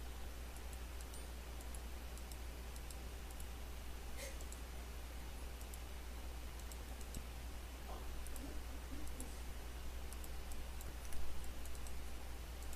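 Computer mouse clicking: scattered light clicks over a steady low hum and hiss, with a louder bump about eleven seconds in.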